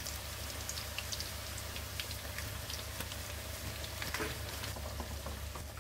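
Cassava chip slices deep-frying in hot oil: a steady sizzle with scattered small crackles as the raw slices bubble.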